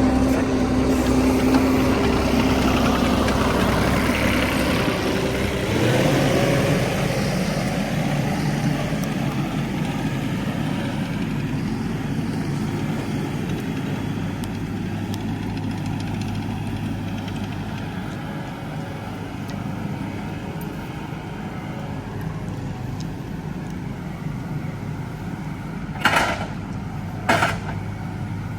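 Engine of heavy equipment running steadily, its pitch shifting about six seconds in and then holding. Near the end come two short hissing bursts about a second and a half apart.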